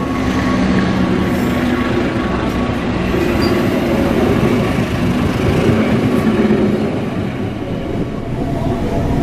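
Passenger train passing close by: the cars rumbling over the rails, with a steady diesel engine hum from the train's generator car.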